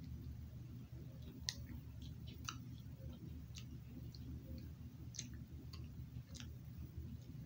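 Faint lip smacks and mouth clicks from eating cotton candy, scattered about once a second over a steady low hum.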